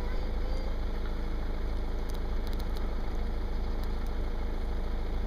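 Steady low rumble of car engines idling, with a few faint ticks about two seconds in.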